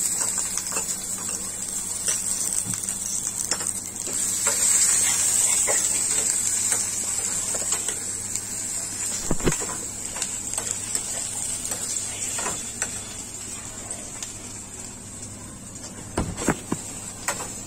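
Sliced onions frying in hot oil in a pan: a steady sizzle that gets louder a few seconds in and dies down in the second half. A spoon knocks against the pan a few times as they are stirred, about halfway through and near the end.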